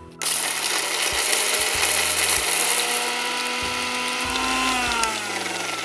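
Electric mixer grinder dry-grinding roasted urad dal, sesame seeds, dried red chillies and curry leaves into powder in its steel jar. It starts suddenly, runs at full speed with a loud rattling whir, then its pitch falls as the motor slows near the end.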